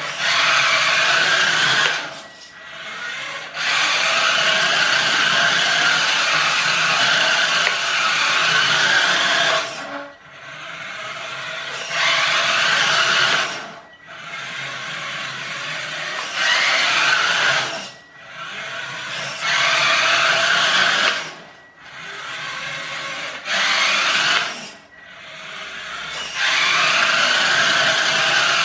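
Small electric drive motor and gearbox of a toy car converted to radio control, whining as it drives in repeated bursts of one to six seconds. The bursts are separated by short pauses and alternate with quieter stretches, and some starts rise in pitch as the motor speeds up.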